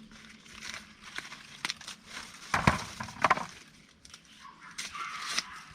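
Dry corn leaves and stalks rustling and crackling as they are handled, with two louder sharp snaps about two and a half and three seconds in.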